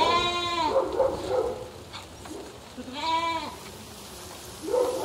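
A flock of sheep bleating: several separate quavering calls, the loudest near the start and about three seconds in, with fainter bleats between them and another near the end.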